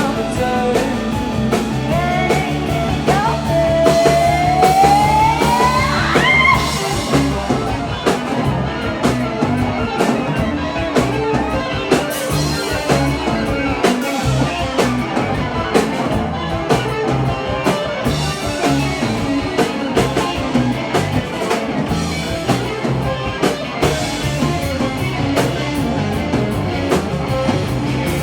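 A rock band playing, with a steady beat. A few seconds in, one long note glides upward in pitch.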